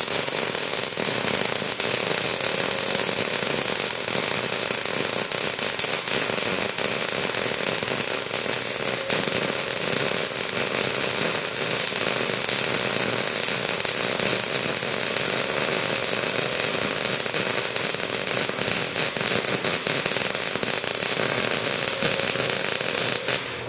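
MIG (gas metal arc) welding arc with shielding gas running a bead along a plate: a steady, dense crackling sizzle that cuts off near the end as the pass is finished.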